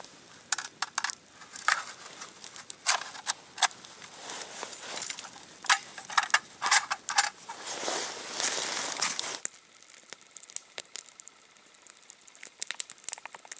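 Wood fire crackling and popping, with irregular sharp pops, some in quick clusters. It grows quieter after about nine and a half seconds, with only a few faint pops after that.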